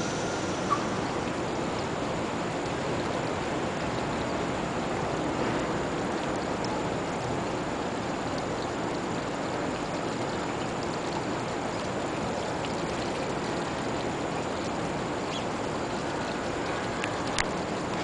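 Small fountain's dome of water splashing steadily down into its shallow pool, with two brief clicks, one about a second in and one near the end.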